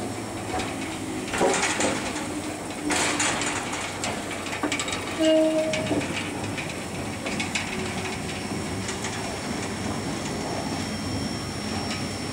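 Class 52 steam locomotive 52 8079, standing in steam while it is turned on a turntable: a steady hiss and low hum, with louder surges of steam about one and a half and three seconds in and scattered clanks. A brief low tone sounds about five seconds in.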